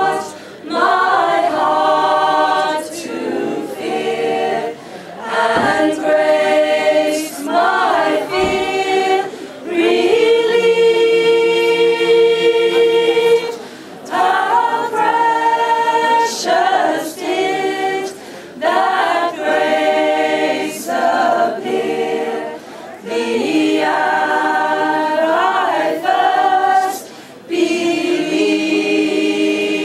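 A small group of voices singing together unaccompanied, in phrases, with long held notes about ten seconds in and again near the end.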